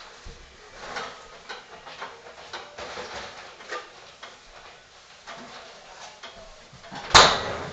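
Scattered light knocks and clicks of household handling in a kitchen, with one loud, sharp noise near the end.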